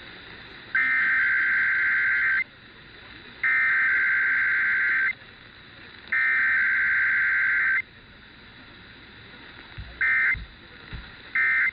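Emergency Alert System digital data tones (SAME bursts): a harsh, buzzy two-tone screech sent in three bursts of about a second and a half each. Two short bursts follow near the end, the pattern of the end-of-message code that closes an alert.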